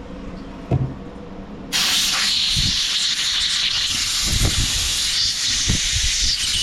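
A single knock, then about two seconds in a steady, loud hiss of pressurized spray being blown into a small-engine carburetor to clear out stale-fuel gum, running on for several seconds with a few low thumps under it.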